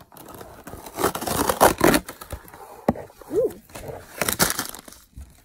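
Cardboard box being opened by hand: scraping and tearing of the box and its packaging, in two noisy bursts about a second in and again around four seconds in.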